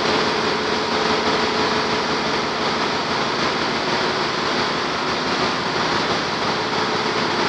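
Steady, loud machinery noise of a bulk carrier's engine room: running engines, pumps and ventilation blending into one even din, with a faint steady tone over the first four seconds or so.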